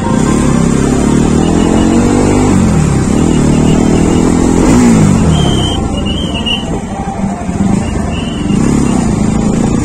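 Motorcycle engines running at low speed in slow, crowded traffic, the engine pitch rising and falling as the throttle opens and closes, with a few short high beeps near the middle.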